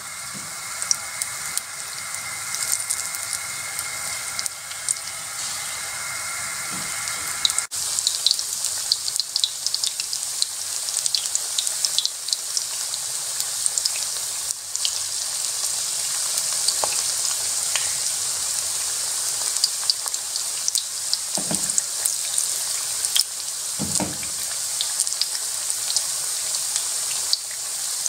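Besan-battered chicken pakoras deep-frying in hot oil: a steady sizzle full of small crackles. A faint hum lies under it for the first several seconds and stops abruptly, and two dull knocks come near the end.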